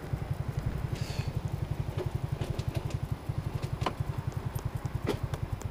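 Motor scooter engine idling with a steady low throb of about ten pulses a second, with a few light clicks on top. The engine stops at the very end.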